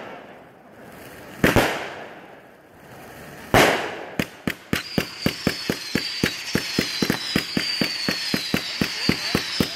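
Aerial fireworks going off: two loud bangs about a second and a half and three and a half seconds in, then a rapid string of sharp cracks, about four a second, over a steady high whistle.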